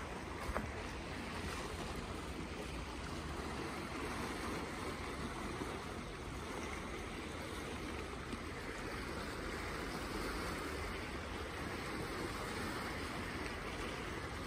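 Steady seaside ambience: an even wash of sea water and wind, with one small tick about half a second in.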